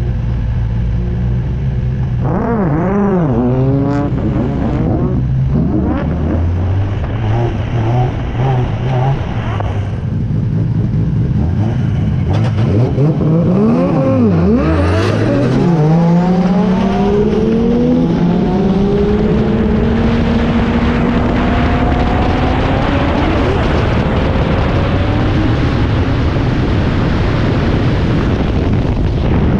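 Drift car's engine heard from on board: idling, with a few quick throttle blips in the first seconds and more revving about halfway through. It then pulls away, the engine pitch climbing steadily as the car accelerates, with rising road and wind noise.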